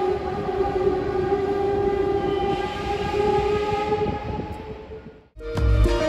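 ICE T electric train rolling slowly into a station, its running sound carrying several steady high-pitched tones over a rumble. It fades away after about five seconds and is cut off by loud music near the end.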